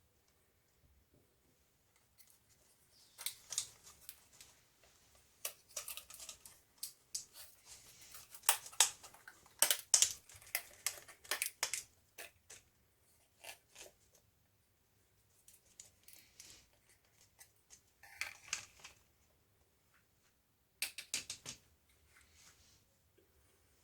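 Hands working on a laptop and its parts: clusters of small sharp plastic clicks, scrapes and crackly rustling, coming in bursts, the busiest stretch in the middle.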